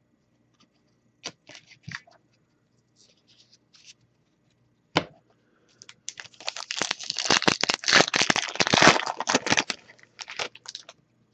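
Foil wrapper of a Topps baseball card pack being torn open and crinkled: a dense crackling rustle lasting about four seconds in the second half. Before it come a few light clicks and one sharp tap as cards are handled.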